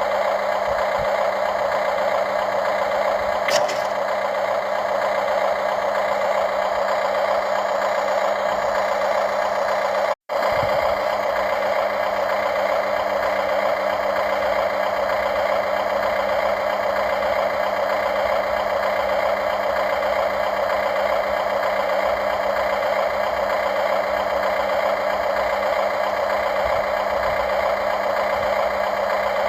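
Radio-controlled model excavator's motors and hydraulic pump running with a steady whirring drone, with a brief cut-out about ten seconds in.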